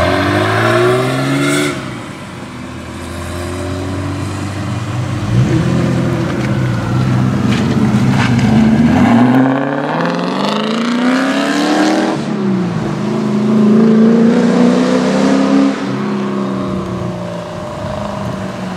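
Porsche 928's V8 accelerating away, its pitch climbing with the revs several times as it shifts up, holding steady for a couple of seconds, then falling back as it moves off.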